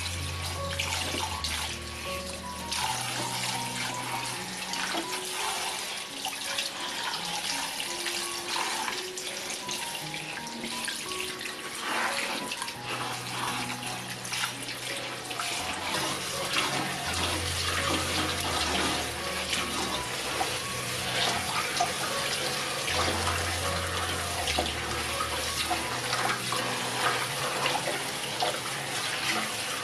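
Tap water running and splashing into a sink, over background music with held bass notes.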